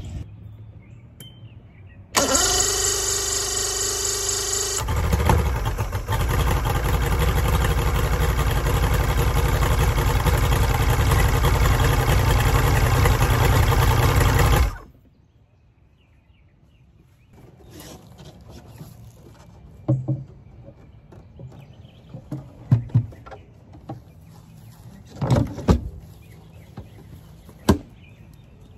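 Mercury XR6 150 two-stroke V6 outboard cranked by its electric starter for about two and a half seconds, catching and running steadily for about ten seconds, then shut off abruptly. Afterwards, a few sharp clunks as the engine cowling is set back on.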